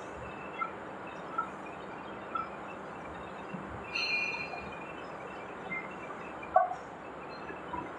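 Gear-cutting machine running as it cuts splines into a steel tractor shaft: a steady mechanical noise with short high metallic chirps about once a second, a brief squeal about four seconds in, and a sharp clack about two and a half seconds later.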